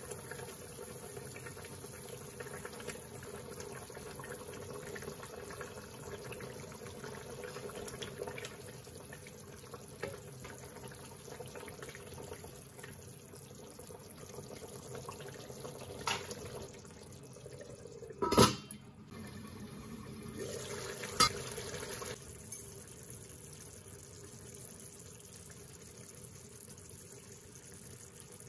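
Tomato-based curry simmering in a kadai, a steady bubbling, with a few short sharp knocks, the loudest about two-thirds of the way through.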